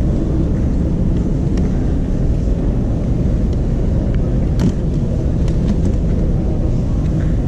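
Steady low rumble of an airport terminal hall, with a few light knocks as a suitcase is pushed down into a cardboard cabin-bag sizing box.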